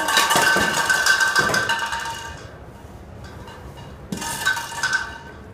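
Hollow plastic toy bowling pins clattering and knocking against each other and on a tile floor. A long burst of clatter opens and dies away after about two seconds, and a shorter burst comes about four seconds in.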